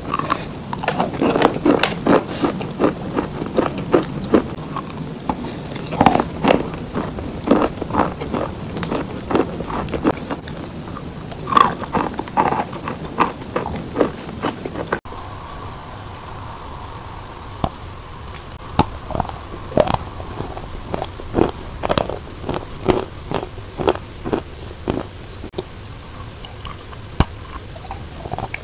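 Chalk lumps being bitten and chewed close to the microphone: a run of sharp, irregular crunches and grinding chews.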